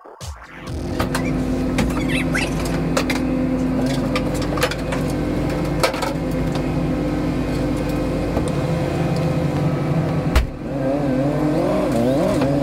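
A vehicle engine idling steadily, with scattered clicks and clanks as cargo straps are undone. About ten seconds in there is a sharp knock, then the engine note rises and falls repeatedly as a forklift works at the van's rear doors.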